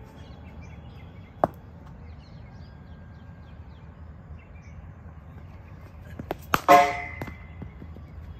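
A cricket bat striking a leather cricket ball in net practice: a few quick knocks, then a loud, sharp crack with a short ringing, about two-thirds of the way in. A single sharp knock comes earlier, about a second and a half in.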